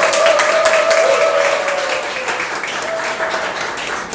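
Audience applauding, loudest at the start and slowly dying down, with a long held note sounding over the clapping in the first half.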